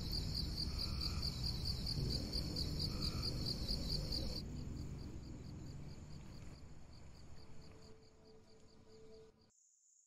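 Crickets chirping in fast, even pulses, about four or five a second, over a low rumble of background noise. It all fades away and cuts off near the end.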